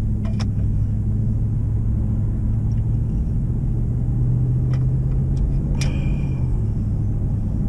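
Steady low drone of a pickup truck's engine and road noise heard inside the cab while driving, its hum strengthening slightly for a couple of seconds past the middle. A few light clicks and knocks, the loudest just before the end with a brief ring.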